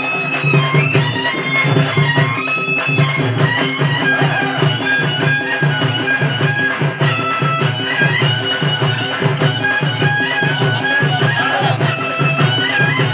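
Loud Telugu folk music accompanying a Kolatam stick dance: a melody that steps between held notes over a steady drum beat of about two beats a second.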